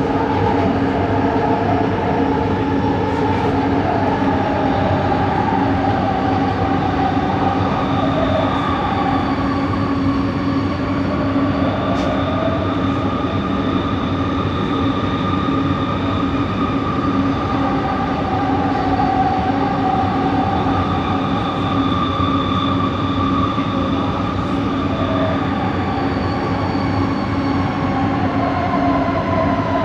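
Inside a light-rail train coach running between stations: steady running noise with a constant motor hum and higher whining tones that drift slowly in pitch. This is the unusual traction-motor noise of Set 70, traced to coach 4.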